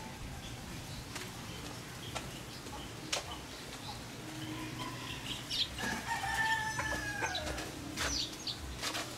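A rooster crows once, about six seconds in: a single call held for about a second and a half that drops in pitch at its end. A few sharp clicks sound around it.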